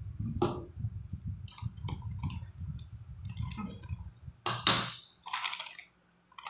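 Plastic food packaging and containers handled on a table: scattered clicks and crinkles over a low rumble of handling, with a louder crackle about four and a half seconds in.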